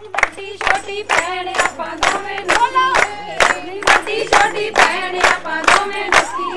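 A group of women singing together to steady, rhythmic hand-clapping.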